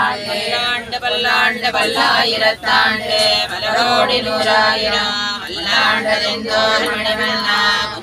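A group of women chanting a devotional hymn together in unison: a parayanam recitation, continuous and without pause.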